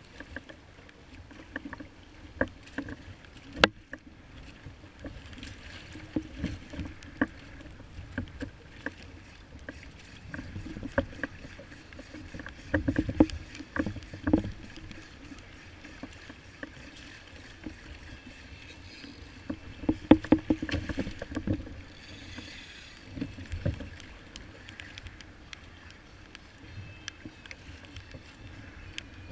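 Choppy sea water sloshing and slapping against the hull of a Hobie Revolution 11 fishing kayak in 3–4 ft swells, with scattered sharp knocks and a few louder surges as bigger waves hit.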